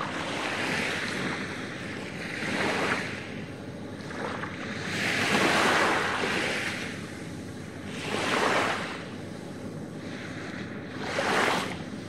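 Small waves breaking and washing up a sandy beach, five swells of surf coming and going, the longest and loudest about halfway through.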